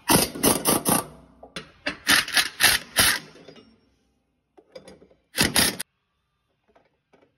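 Snap-on pneumatic impact wrench with an inch-and-an-eighth socket hammering on a bolt of a truck's front drive axle, in short trigger bursts: a run of quick blips in the first second, another about two seconds in, and a brief one about five and a half seconds in.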